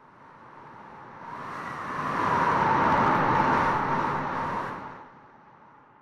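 A rushing whoosh that swells slowly to a peak about three seconds in, then fades away, like something passing by.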